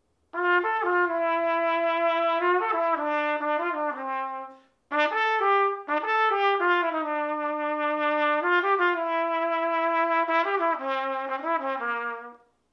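Trumpet playing a slow melody of long held notes in two phrases, with a short break about four and a half seconds in.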